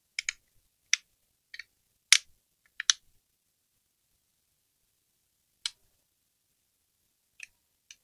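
Scattered sharp clicks and light taps: a quick run of about seven in the first three seconds, one more a little later, and two fainter ones near the end.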